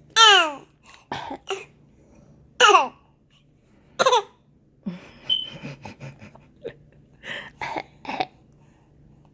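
A 20-week-old baby fake coughing: a string of short, voiced little coughs, the loudest three with a squeaky pitch that falls, followed by softer ones.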